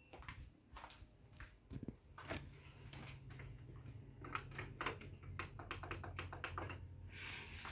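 Acson mini split air conditioner starting up: a steady low hum sets in about two seconds in and holds, with scattered light clicks and taps throughout.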